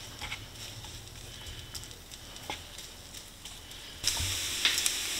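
Chopped bacon frying in a nonstick skillet, first a faint sizzle with a few light ticks of a wooden spoon. About four seconds in it jumps to a loud, steady sizzle and crackle as the bacon renders its fat.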